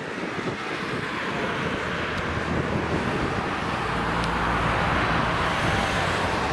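A box truck driving past close by on the road, its tyre and engine noise swelling to a peak about five seconds in.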